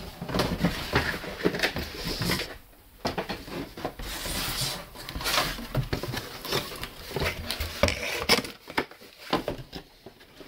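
Cardboard shoe boxes being handled in a shipping carton: sliding and scraping against each other, with many small knocks and rustling as a box is lifted out and opened.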